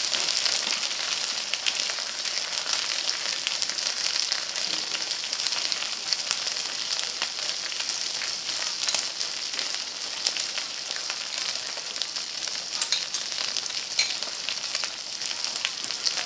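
Marinated beef, potato wedges and green beans sizzling steadily on a hot tabletop grill pan, with frequent small pops and crackles of spattering fat.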